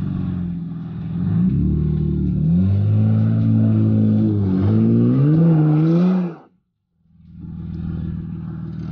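Honda Ridgeline's 3.5-litre V6 revving hard under load as the truck struggles to climb a rock ledge, its pitch rising, dipping and rising again. The sound cuts off abruptly about six and a half seconds in, then the engine is heard again running more steadily.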